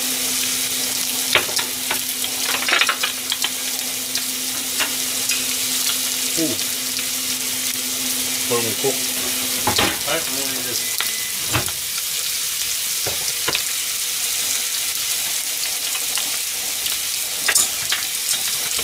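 Pork belly and vegetables sizzling in oil in a frying pan over high heat, a steady hiss, with scattered clicks of plates and utensils. A low steady hum stops about halfway through.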